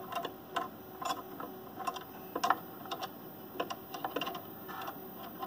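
Irregular small metallic clicks and ticks, a dozen or so, from the Othermill desktop CNC mill's spindle collet and its changing wrenches being worked by hand to change a broken end mill bit. The loudest click comes about halfway through.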